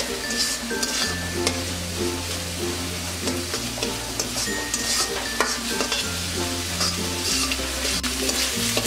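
A spatula scraping and stirring egg and chicken that sizzle as they fry in a karahi, with repeated short scrapes against the pan. Background music with a slow-changing bass line plays underneath.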